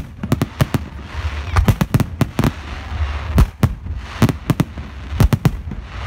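Fireworks display: aerial shells bursting in rapid, irregular bangs, some close together, with a rushing hiss between some of the bangs.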